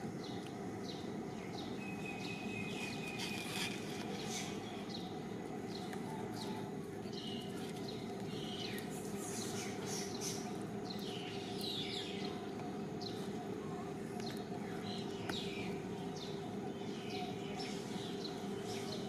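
Small birds chirping over and over, many quick high downward-sweeping chirps, over a steady background hum.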